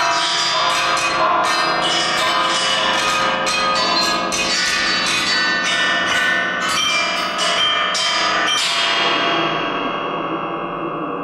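Chamber ensemble playing metal percussion struck with mallets in rapid, dense strokes, joined by piano. About nine seconds in the strokes stop and the struck metal rings on, fading.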